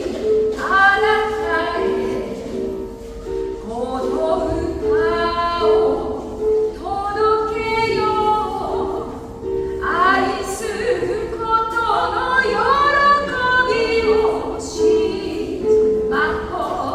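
Singing: a voice sings phrased lines over an instrumental accompaniment of steady, repeated notes held beneath it.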